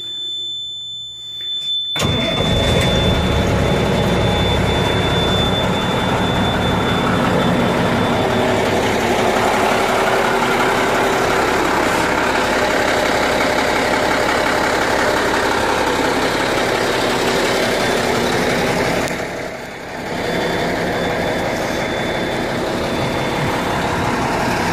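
Cummins NHC 250 14-litre diesel engine of an M923 5-ton military truck starting: it catches about two seconds in and then runs at a steady idle.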